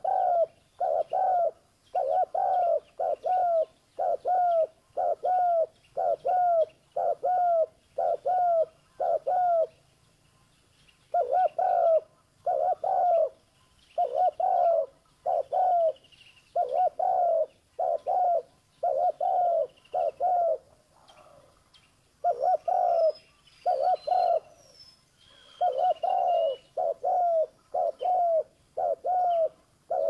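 Spotted dove cooing over and over: low coos in phrases of two or three notes, with short pauses about ten and twenty-one seconds in. Faint high chirps sound behind it past the twenty-second mark.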